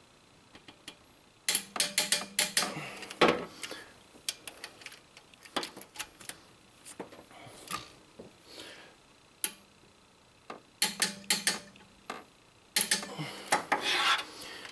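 Ratcheting torque wrench clicking in three bursts of rapid ratchet clicks, with scattered single clicks between, as cylinder head bolts are pulled down to 80 foot-pounds.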